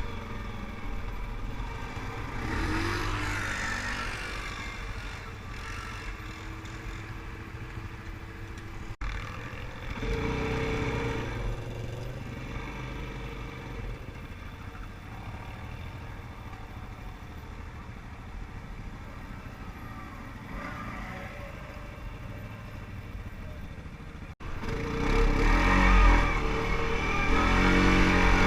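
Quad bike engines running and revving over rough ground, with a low rumble throughout and louder revving in the last few seconds.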